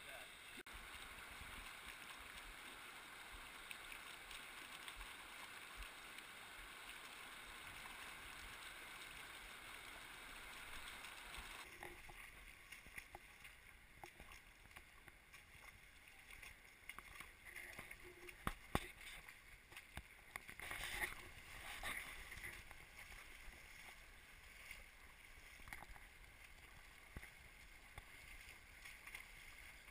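Shallow river water running over rocks, with splashes from people wading, heard muffled through a waterproof camera housing. The steady rush drops abruptly about 12 seconds in, leaving quieter water with scattered splashes and knocks.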